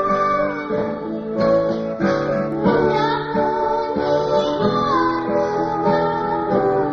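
Song with strummed acoustic guitar and a high voice singing over it.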